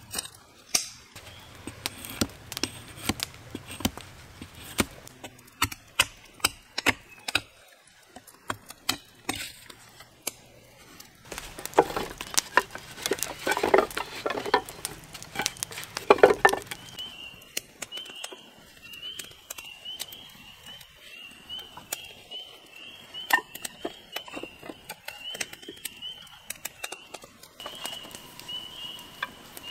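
Irregular sharp knocks and clicks, like things being handled and struck, with a denser, louder scraping and rustling stretch about halfway through. From a little past the middle a steady, high, wavering chirr sets in and runs on behind a few further knocks.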